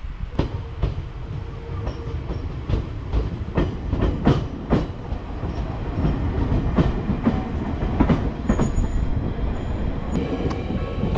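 Electric train passing close by: a low rumble with wheels clattering over rail joints in an uneven run of sharp clicks, and a brief high wheel squeal partway through.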